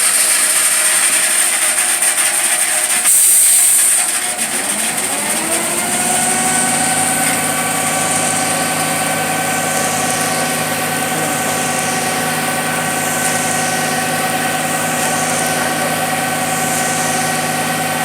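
Concrete truck engine: a short burst of hiss about three seconds in, then the engine revs up over a couple of seconds and holds at a steady, higher speed.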